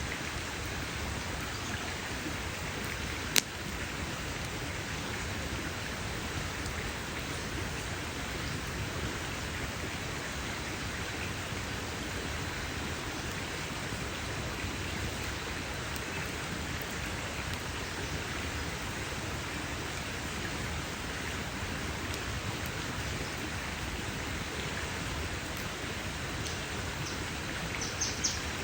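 Wood campfire burning with a steady hiss, one sharp loud pop about three seconds in and a few small snaps near the end.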